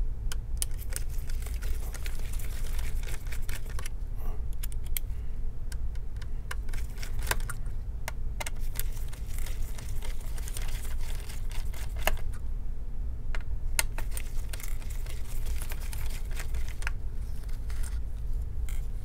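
Irregular small clicks and taps of a precision screwdriver working out the small screws that hold a laptop's heatsink, over a steady low hum.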